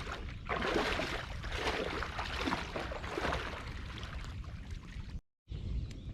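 Water splashing and sloshing in irregular bursts over a steady low rumble, cut off abruptly about five seconds in.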